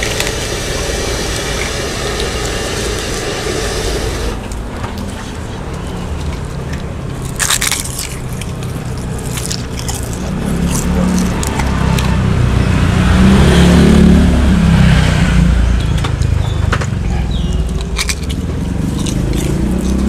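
A motor engine running, swelling to its loudest about two thirds of the way in, with a few sharp clinks of kitchen utensils against bowls and a pot.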